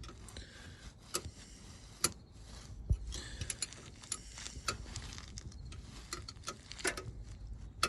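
Hand ratchet clicking in short, irregular runs as the nuts holding the driveshaft's U-joint to the yoke are tightened.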